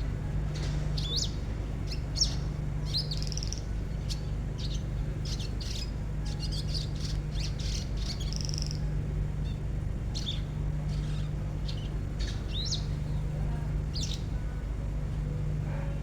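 Caged songbird giving rough, rapid 'tembakan' calls: many short, sharp, sweeping chirps packed closely together, over a steady low hum.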